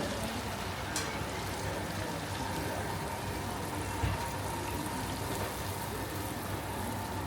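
Busy market ambience: a steady hubbub of indistinct voices and general noise, with a sharp click about a second in and a dull thump about four seconds in.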